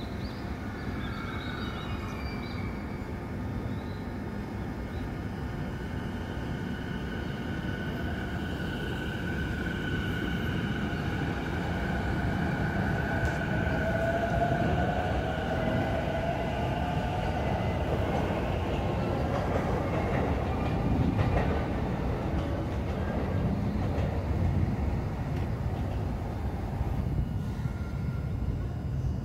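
JR Saikyo Line E233-series electric commuter train at the station: a low rumble under high, steady electric whines, with a tone that rises in pitch midway. The sound grows louder toward about two-thirds of the way through.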